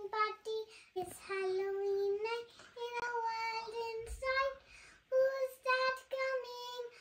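A young girl singing a slow tune alone, without accompaniment, in long held notes with short breaks between them.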